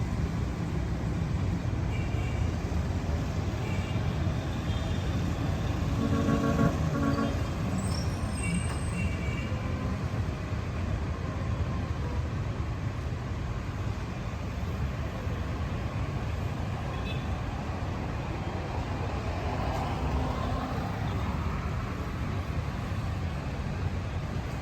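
Steady street traffic rumble, with a vehicle horn sounding briefly about six seconds in and a few short high chirps scattered through.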